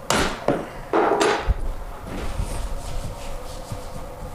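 Small metal hand tool scraping hard against the vanity's wooden frame in two strokes about a second apart, followed by a sharp knock and then lighter rubbing.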